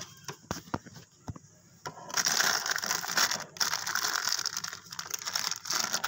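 Close handling noise: a few soft clicks, then from about two seconds in a dense crackling rustle of many small clicks.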